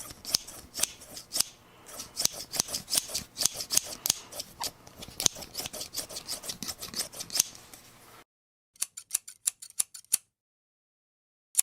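Metal scissors snipping repeatedly, sharp clicks of the blades closing about three times a second. After a sudden cut to silence comes a quicker run of about eight snips, then one more near the end.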